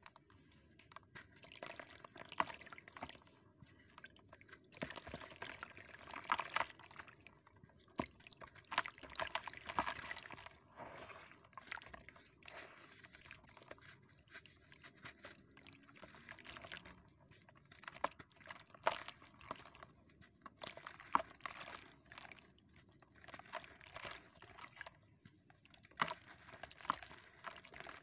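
Hands crumbling a dry, sandy block into a basin of water: irregular gritty crunching and crackling, with splashes and drips as pieces break off and fall in.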